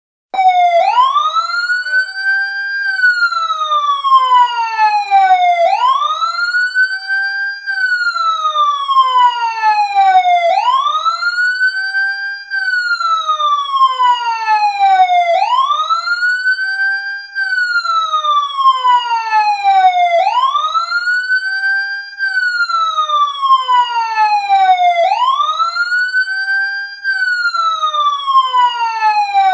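Emergency siren in a slow wail. Each cycle rises quickly in pitch over about two seconds, then falls more slowly over about three. It repeats about every five seconds, some six times over.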